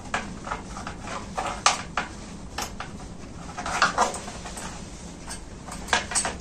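Needle-nose pliers clicking and scraping against thick steel tensioning wire as an eye is twisted into the wire's end: a series of irregular light metallic clicks.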